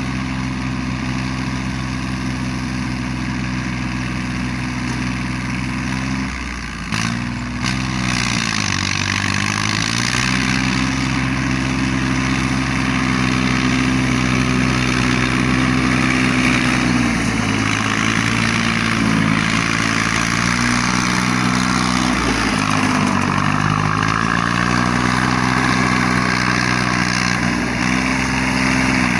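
Yanmar YM3000 tractor's three-cylinder 3T84 diesel engine running steadily while it pulls and drives a round baler through rice straw. The engine note drops and climbs back three times.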